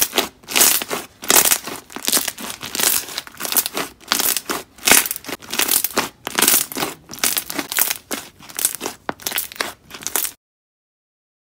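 Hands squeezing and stretching thick slime, giving crackly squishing bursts about twice a second. The sound cuts off abruptly about ten seconds in.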